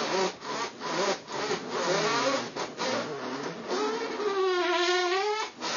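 Wordless humming by a person, wavering in pitch, with one long held, arching note near the end.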